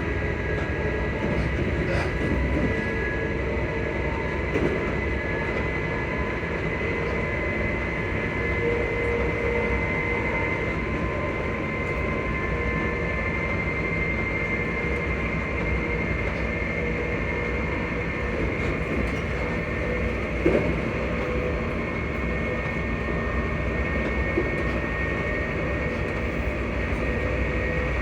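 ScotRail Class 334 electric multiple unit running, heard from on board: its traction motors give a whine of several steady tones that drift slightly in pitch over the rumble of the wheels on the track. A couple of short knocks come through, about four seconds in and again near twenty seconds.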